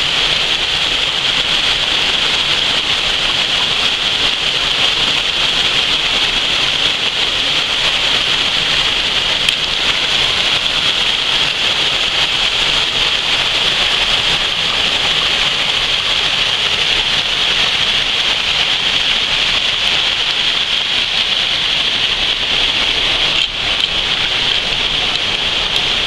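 Steady rush and splash of a small waterfall pouring into a rocky pool, with water spilling over stones.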